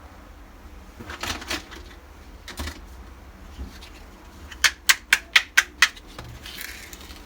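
Small hard toy pieces being handled: a few scattered clicks, then a quick run of six sharp taps, about five a second, and a short soft rustle near the end.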